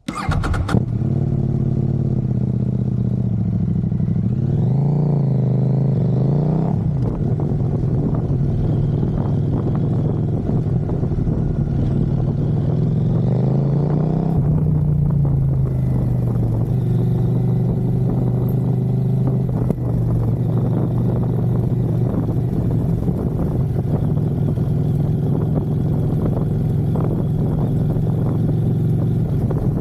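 CFMoto 800MT's parallel-twin engine, breathing through a Black Widow slip-on exhaust, starting up and settling into a steady idle. It is revved up and back down twice, about five seconds in and again about fourteen seconds in.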